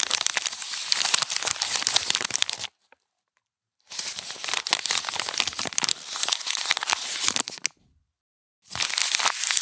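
Sheet of paper being crumpled by hand, dense crinkling and crackling, in three separate bursts of a few seconds each with silent gaps between them.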